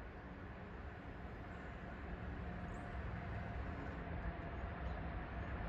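Faint outdoor background noise: a low steady rumble that slowly grows louder, with a few brief faint high chirps from about a third of the way in.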